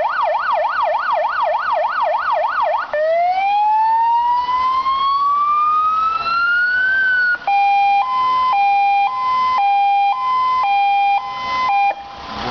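Electronic siren of an Iveco Daily light fire engine running through its tones: a fast up-and-down yelp, then after about three seconds a slow rising wail, and from about seven and a half seconds a two-tone hi-lo alternating between two pitches.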